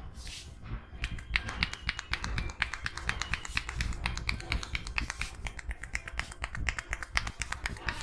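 Barber's fingers snapping and tapping on a man's head and hair during a head massage: a fast run of sharp clicks, several a second, starting about a second in.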